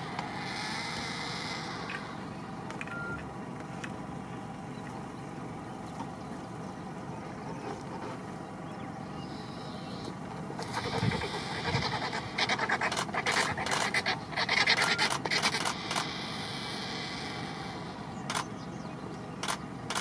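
Vultures squabbling at a carcass: about halfway through, five or six seconds of rapid scuffling and wing-flapping, then two more short sharp sounds near the end, over a steady background rumble.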